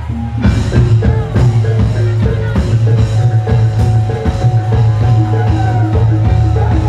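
Javanese gamelan music accompanying a kuda lumping (jaran kepang) dance: struck metallophones play a repeating melody in an even rhythm over drum strokes and a steady low drone. The ensemble comes back in with a strike about half a second in, after a brief dip.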